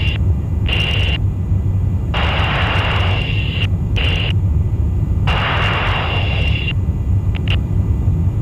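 Steady low rumble of a tanker aircraft in flight, heard from inside the aircraft. Over it come repeated bursts of hiss with a high steady whine, each lasting a second or so, starting and stopping abruptly.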